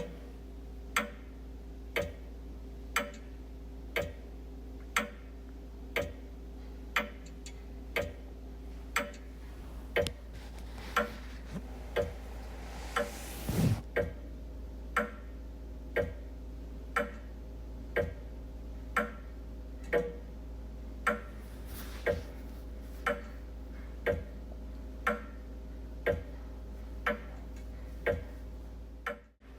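Wall clock ticking steadily, about one tick a second. About halfway through, a soft swelling rush of noise rises and fades under the ticks.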